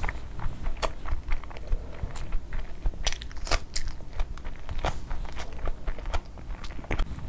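Close-miked chewing and biting of food, with many short, sharp crunches and clicks coming irregularly.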